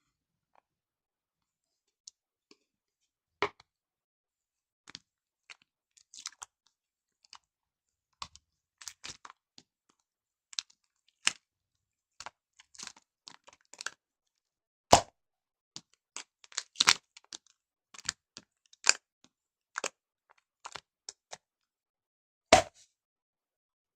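Slime being squeezed, poked and stretched by hand, giving irregular sharp clicks and pops. A few pops stand out much louder, the loudest about fifteen seconds in and another near the end.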